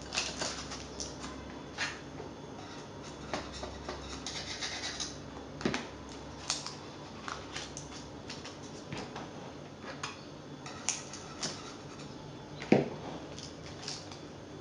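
Scattered clicks, taps and scrapes of a metal springform cake pan being handled on a wire cooling rack, with one louder knock near the end.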